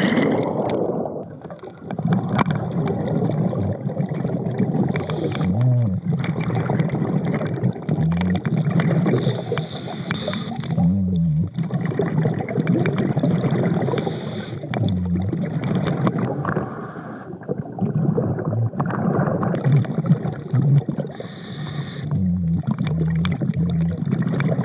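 Underwater sound of a diver breathing through a surface-supplied air regulator: a hiss with each breath and gurgling bursts of exhaled bubbles, repeating every few seconds.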